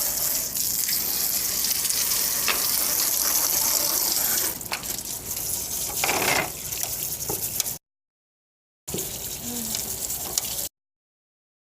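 Running water splashing as a part of a window air conditioner is washed: a steady hiss that turns uneven partway through, broken twice near the end by sudden total silence.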